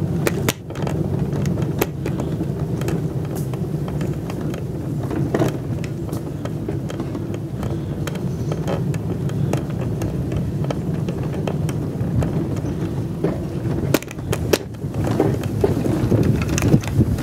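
Pickup truck driving along a dirt logging road, heard from its open bed: a steady engine and tyre rumble with scattered rattles and knocks, and a few sharper jolts about three-quarters of the way through.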